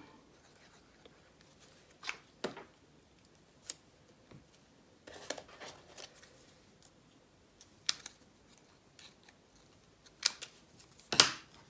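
Small craft scissors snipping a die-cut paper leaf, heard as a few short sharp snips near the end, the loudest about eleven seconds in. Earlier come scattered light clicks and rustles of paper pieces being handled.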